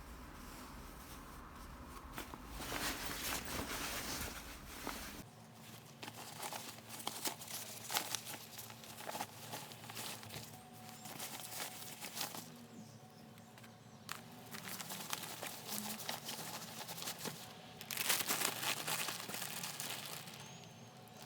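Bags and packaging rustling and crinkling as they are handled, with scattered clicks and knocks. The rustling is loudest about three seconds in and again near the end.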